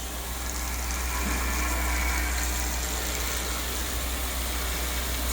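Woodworking drilling machine running steadily: a constant low hum under an even noise, with no drilling strokes or impacts.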